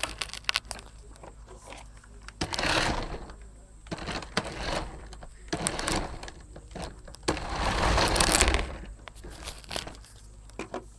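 Handling noise: several rustling, scraping bursts with scattered clicks, the longest and loudest about a second and a half long, as things are handled close to the phone's microphone.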